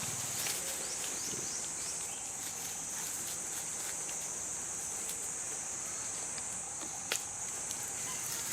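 Insects droning steadily in one high, even pitch, with a single sharp click about seven seconds in.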